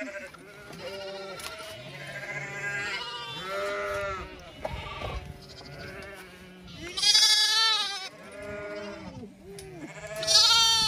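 Lambs bleating repeatedly, several overlapping calls with a quavering pitch. The two loudest bleats come about seven and ten seconds in.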